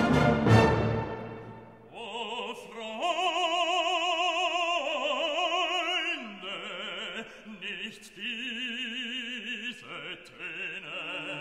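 Background classical music. A full orchestral chord dies away, then a solo operatic voice sings long held notes with a strong vibrato from about two seconds in.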